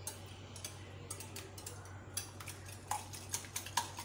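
Wire whisk beating eggs in a glass bowl: the wires tap and click against the glass in quick, irregular strokes, with a few louder clinks in the second half.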